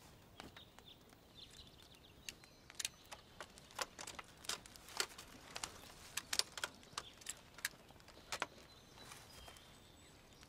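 Faint, irregular sharp clicks and ticks, a few each second, over a quiet outdoor background.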